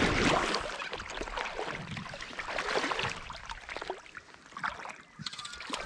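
River water sloshing and splashing close by, in irregular bursts, loudest at the start and easing off near the end.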